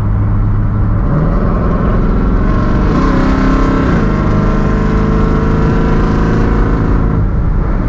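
Dodge Dakota pickup's engine accelerating, heard from inside the cab. Its pitch climbs for a couple of seconds, drops once about four seconds in, holds, then eases off near the end.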